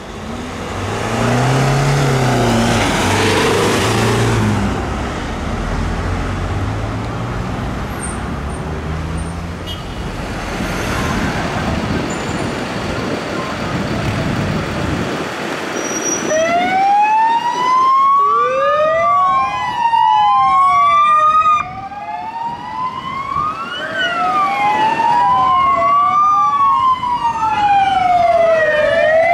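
First, an ambulance passing close, with a low rumble and a rush of road noise. Then, in the second half, the wail sirens of several police vehicles, each rising and falling about every four seconds and overlapping out of step.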